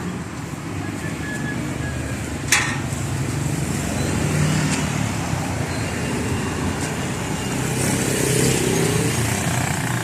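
A motor vehicle's engine running on the street, swelling slightly in level near the middle and again near the end, with one sharp click about two and a half seconds in.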